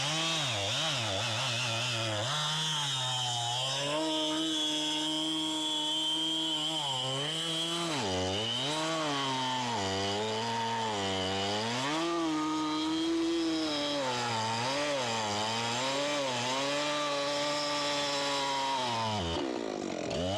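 Two-stroke chainsaw held at full throttle, finishing a cut from the bottom through a fallen tree trunk. The engine pitch sags and recovers over and over as the chain loads up in the wood, then drops sharply near the end as the throttle is released.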